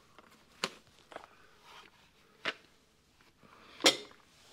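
Four sharp knocks, the last one, near the end, the loudest.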